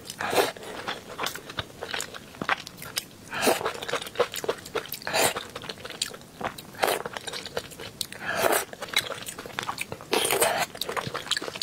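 Close-miked eating: wet lip smacks and clicks of a mouth chewing soft braised potato and glass noodles, with louder wet bursts every second or two.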